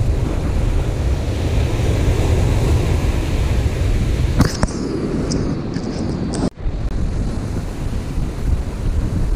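Surf breaking on the beach with wind buffeting the microphone, a steady heavy rush. A sharp click about four and a half seconds in, followed by a few fainter ticks.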